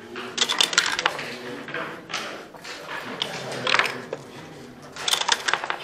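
Backgammon dice and checkers clattering on the board in play: four quick runs of sharp clicks, a second or so apart.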